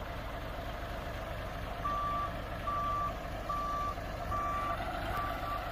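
A heavy vehicle's backup alarm beeping as it reverses, starting about two seconds in and sounding a single-pitched beep a little faster than once a second, over the steady running of its engine.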